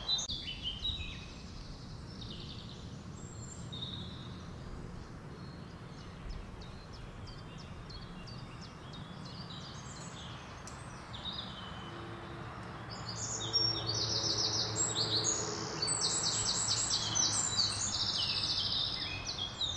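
Small songbirds chirping and singing over steady outdoor background noise. From about two-thirds of the way through comes a louder run of rapid trilled notes.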